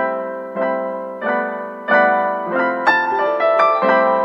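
Background piano music: chords or notes struck about every half-second, each fading away before the next.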